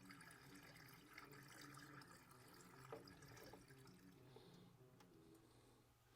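Faint trickle of engine flush being poured from a can into the engine's oil filler opening, over a faint low hum.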